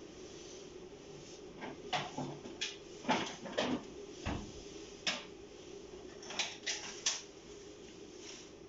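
Handling noises: a scattered run of about a dozen short clicks and knocks as small objects are picked up and set down, over a steady low hum.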